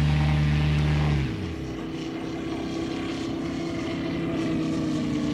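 Moki S215 five-cylinder radial engine of a large RC Bücker Bü 133 Jungmeister model running in flight, with a propeller drone. About a second in, the deep engine note falls away and the sound gets quieter, leaving a steadier, higher hum that slowly grows louder again.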